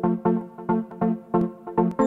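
Background music with a steady, even pulse of about three notes a second.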